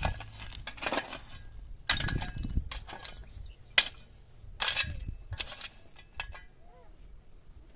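Dishes and metal cooking utensils clinking and clattering as they are handled: a string of sharp, irregular knocks and clinks that thin out toward the end.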